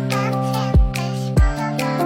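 Background music with a steady beat and a melody line over sustained chords.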